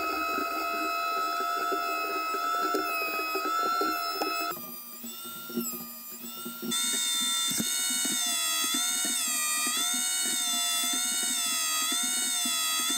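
Benchtop thickness planer running with a high-pitched whine as its cutterhead shaves a glued-up striped hardwood panel. The whine drops briefly in the middle, then comes back and dips and wavers in pitch as the board feeds through under load.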